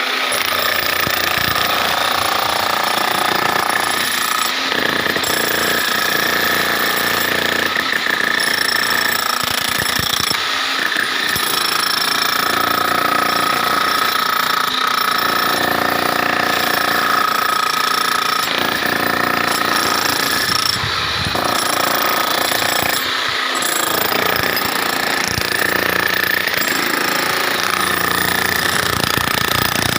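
A jackhammer-type demolition hammer breaking up a floor. It runs almost without a break, stopping briefly a few times.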